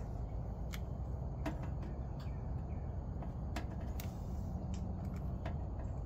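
A lighter being clicked over and over without catching: about half a dozen sharp, irregularly spaced clicks over a steady low background rumble.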